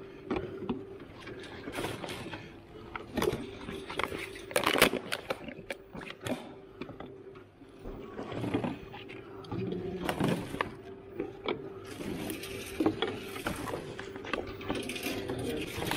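A black plastic rubbish bag rustling and empty plastic bottles crinkling and knocking as gloved hands pull them out one after another, with irregular sharp crackles throughout, over a steady low hum.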